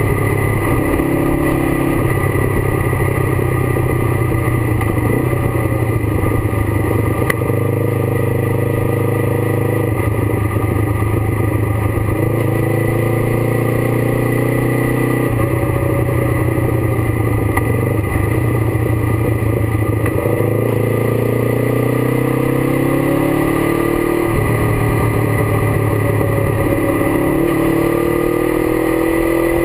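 Kawasaki GPZ 500's parallel-twin engine running at road speed. Its pitch holds level, then shifts in sudden steps with throttle and gear changes, and rises in long sweeps as it accelerates near the end.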